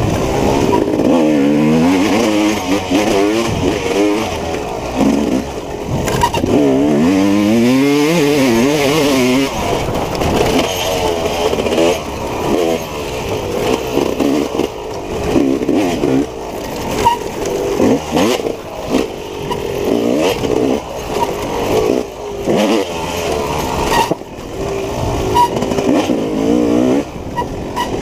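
Off-road dirt bike engine working hard through a wooded trail, the revs rising and falling again and again as the throttle is opened and chopped.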